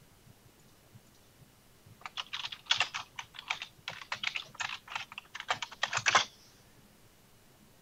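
Typing on a computer keyboard: a quick run of keystrokes starting about two seconds in and stopping after about four seconds.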